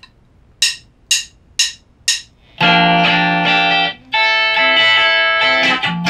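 The drummer counts in with four sharp clicks, about two a second, then an electric guitar starts strumming chords loudly, dropping out briefly twice.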